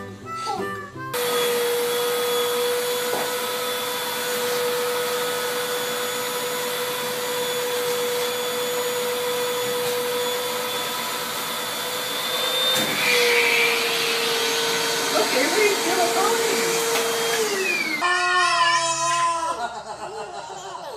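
Vacuum cleaner running steadily with its hose held to a toddler's hair, a steady motor hum over a rush of air; the hum drops slightly in pitch about two-thirds through and cuts off suddenly near the end, followed by voices.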